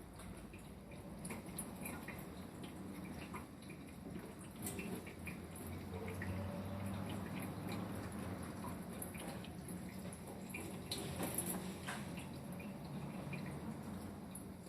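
Thin stream of tap water running into a sink, with irregular drips and small splashes.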